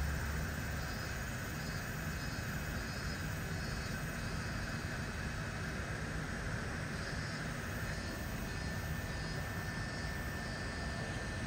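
Artificial waterfall pouring into a pool, a steady continuous rushing of water.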